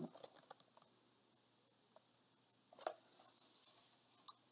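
A large picture book's paper page being turned, a soft rustle and swish about three seconds in that ends with a light tap. It follows a couple of seconds of near-quiet room tone.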